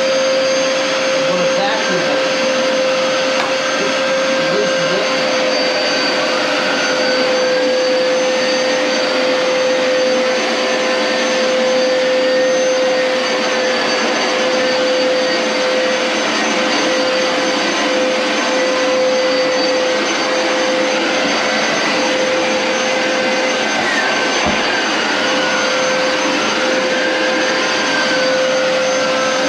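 Hoover Power Scrub XL upright carpet cleaner running steadily: its motor whine with a strong steady hum and a wash of suction noise as it scrubs and sucks water out of a rug.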